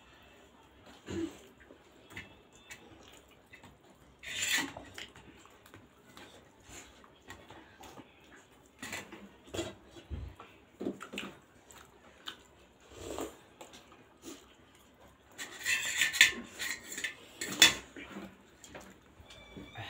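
Close-up eating sounds of two people eating steamed pork momos dipped in achar, with scattered clinks of a spoon and fork against steel plates and plastic dip containers. The sounds are short and irregular, with louder bursts about four seconds in and again around fifteen to eighteen seconds.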